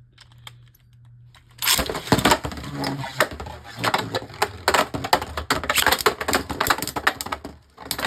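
Beyblade Burst spinning tops launched into a plastic stadium with a sudden zip, then clattering and rattling against each other and the stadium walls in rapid clicks for about six seconds. The rattling cuts off abruptly near the end. Faint clicks of handling come before the launch.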